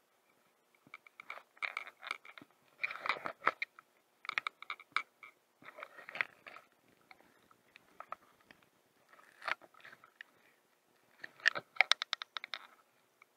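Crunchy, crackling handling noise close to the microphone as the angler's jacket sleeve and hands move while working a baitcasting reel, coming in irregular bursts about a second long with short pauses.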